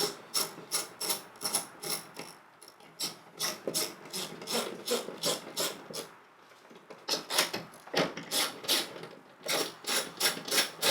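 Ratchet wrench clicking in quick even strokes, about four a second, in several spells with short pauses, as 10 mm bolts holding the window motor and regulator are backed out.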